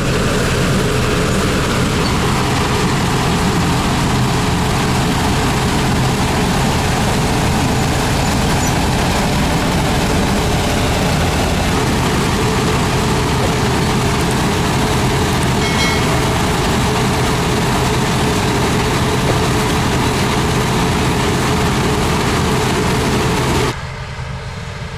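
Rostselmash DON-1500B combine harvester running at close range while cutting wheat: a loud, steady mechanical din with a low hum. Near the end it drops suddenly to a quieter, more distant level.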